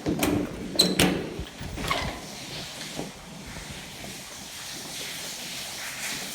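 A few sharp knocks and clunks in an echoey concrete room, then a steady hiss of water escaping from a leaking pipe fitting after the main water line is opened.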